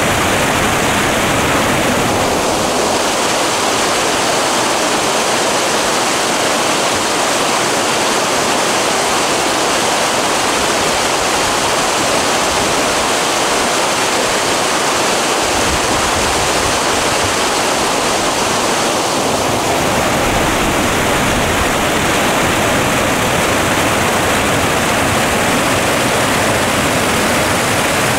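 Water pouring over a waterfall and rushing through a rocky creek cascade: a steady, loud rush of water, whose tone shifts slightly about two seconds in and again about two-thirds of the way through.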